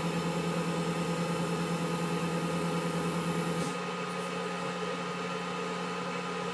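Wood lathe motor running steadily as a paste-wax finish is buffed onto the spinning wooden turkey-call blank with a paper towel. A little before four seconds in, the hum steps down slightly and the hiss quietens a little.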